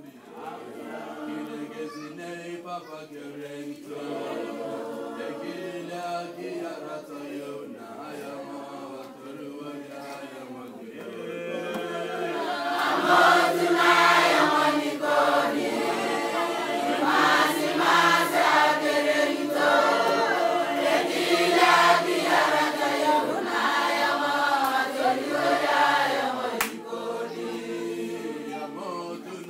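A group of voices singing together without instruments, growing louder about twelve seconds in and easing off near the end.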